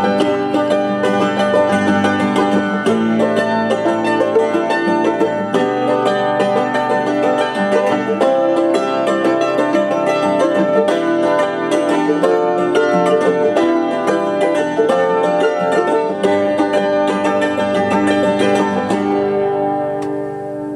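Acoustic folk string music (hammered dulcimer, guitar and mandolin) playing back from a Dolby B chrome cassette on a TOA BA-823 cassette deck. The music goes on steadily and fades in the last second or two.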